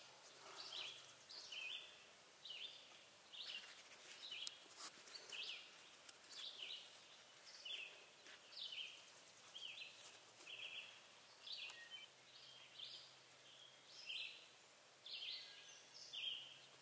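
Faint birdsong in the woods: short high chirps from small birds, repeating about once or twice a second without a break.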